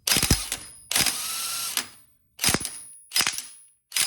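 Impact wrench hammering on a bolt in the motorcycle's front sprocket area, in repeated trigger bursts: a short burst, a longer run about a second in, then several short bursts. The bolt is left-hand threaded, so it is being driven the wrong way and snaps moments later.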